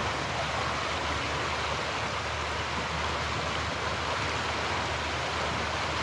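A fast-flowing brook rushing over a stretch of white-water rapids: a steady, even rush of water.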